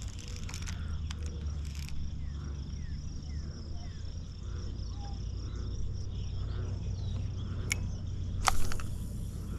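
Evening outdoor ambience: a steady, high insect chorus of crickets, with short, falling bird chirps through the middle and a low rumble underneath. About eight and a half seconds in there is a brief, loud noisy sound.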